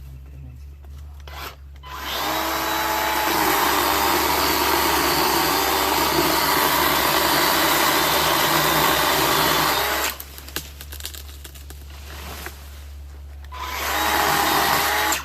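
Makita 18V cordless chainsaw's electric motor whining as it runs, in two runs: a long one of about eight seconds and a short one near the end, with a few light knocks in the gap between them.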